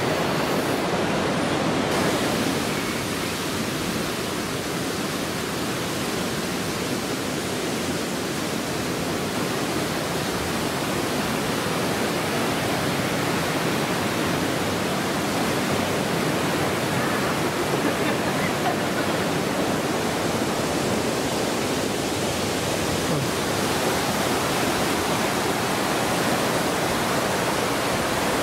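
Rocky mountain stream rushing over boulders in white-water rapids: a steady rush of water with no breaks.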